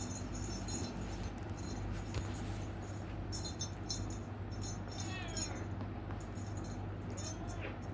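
Faint cat cries over a steady low hum and scattered high crackles: one cry falls in pitch about five seconds in, and a short one comes near the end.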